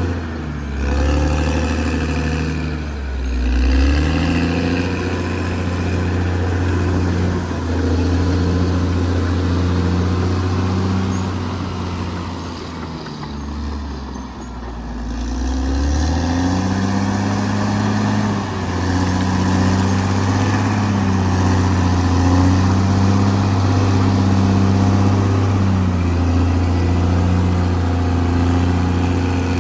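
Caterpillar D6R XL bulldozer's diesel engine running hard, its engine speed sagging and climbing back twice: near the start and again around halfway.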